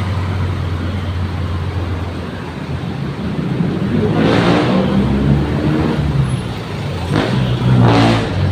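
Busy city road traffic: vehicle engines running in a steady low hum, with two vehicles passing close by, one about four seconds in and another near the end.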